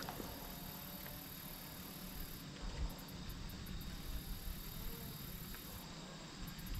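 Crickets trilling steadily over a low rumble on the microphone.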